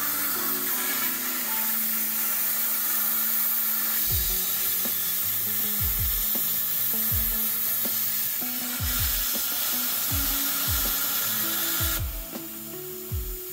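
CNC plasma cutter torch cutting sheet metal: a loud, steady hiss of the plasma arc and its air, which cuts off about twelve seconds in as the cut ends. Background music with a steady beat plays underneath.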